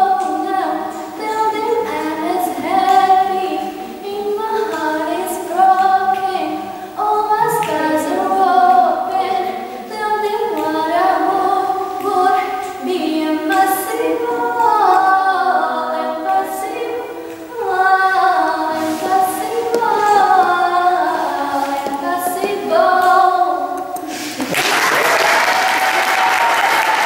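A girl singing a song solo and unaccompanied, in an echoing hall. About 24 seconds in the singing ends and applause follows.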